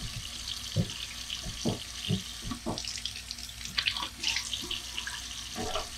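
Kitchen faucet running a thin steady stream into the sink drain, with scattered short taps and splashes as hands work under the water.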